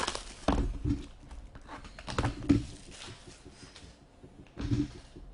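A sealed box of hockey cards being opened by hand: a string of knocks and taps on cardboard with rustling in between, the loudest about half a second in, about two and a half seconds in and just before the end.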